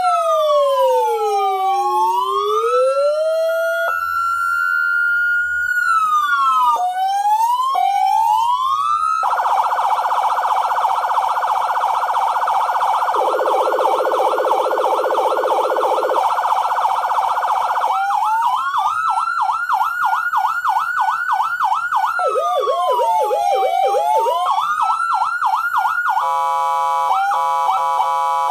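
X5 400-watt dual-tone electronic siren sounding through its siren speakers and cycling through its tones. It plays a slow falling and rising wail, then quick upward yelps, then a fast pulsing warble at about four pulses a second, with a second lower tone joining it for a few seconds. Another slow wail with a rapid pulse on it follows, and near the end a steady blaring horn tone.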